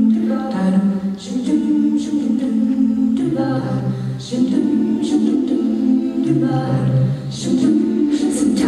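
All-female a cappella group singing sustained chords in close harmony, the chords shifting every second or two. A low bass voice comes in under the chord twice, about three seconds in and again past six seconds.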